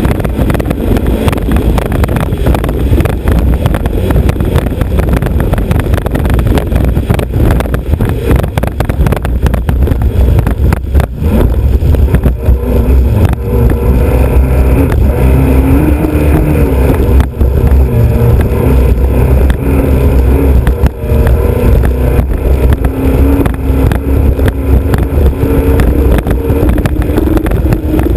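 Racing hydroplane's Alfa Romeo Autodelta 2.5 V6 running under way, heard from the bow under a heavy rush of wind and water. The engine's tone comes through more clearly about halfway in, wavering up and down slightly.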